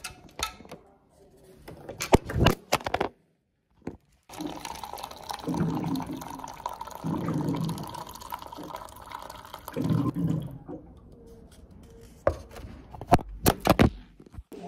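Water running from a dispenser into a paper cup for tea, a steady pour lasting several seconds. A few sharp clicks come before it and again near the end.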